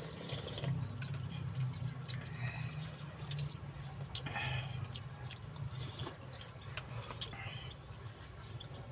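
Eating sounds: slurping and sipping instant noodle soup from plastic bowls, with scattered small spoon clicks, over a steady low hum.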